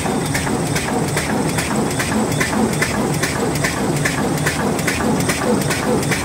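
Side-sealing glue patch handle bag-making machine running at production speed: a steady mechanical clatter with evenly spaced clicks a few times a second from its repeating sealing and cutting cycle, over a faint high steady whine.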